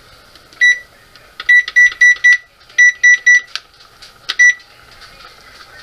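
Electronic keypad beeps from a kitchen appliance's touch controls as buttons are pressed: a single beep, then a run of four, a run of three, and a last single beep, all at the same high pitch.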